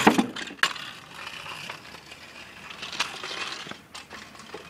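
Kick scooter landing hard on the road after a ramp jump: a sharp clatter with a dull thump, a second knock about half a second later, then the wheels rolling away. A few lighter clicks and knocks follow near the end.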